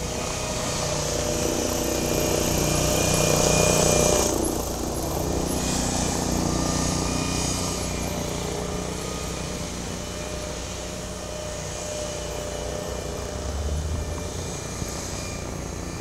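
Engine noise in the street, with steady low running beneath broad road and machine noise. It swells to its loudest about four seconds in, then drops off sharply and carries on more evenly.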